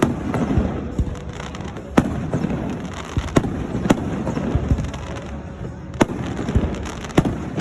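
Aerial fireworks going off: a string of sharp bangs, the loudest about two, six and seven seconds in, over continuous crackling and rumbling from the bursts.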